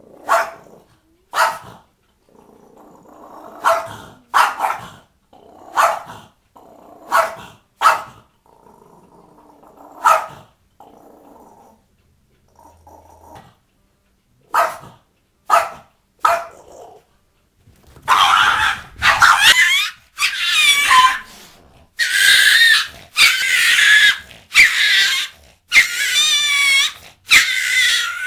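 A dog barking in single sharp barks every second or two, with low growling between them. Then comes a run of loud, long, high-pitched wavering cries, nearly one a second.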